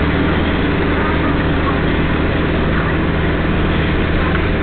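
Vehicle engine running steadily with a low hum while driving, heard from inside the cab.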